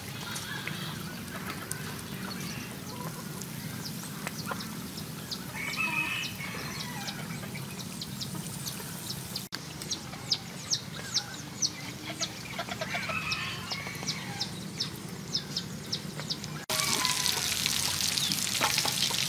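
Chickens clucking over the crackle and sizzle of chicken pieces deep-frying in a wok of hot oil, with sharp pops of spitting oil. About three-quarters through, the frying suddenly becomes much louder, a dense steady sizzle.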